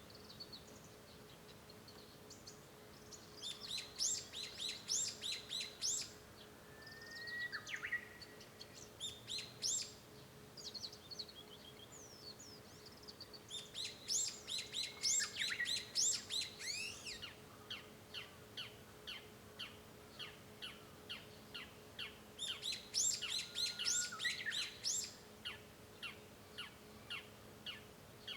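Japanese bush warbler (uguisu) singing: a few long whistled notes, each followed by a quick flourish, among bursts of high twittering, then a long run of evenly repeated short notes in the second half. A faint steady hum lies underneath.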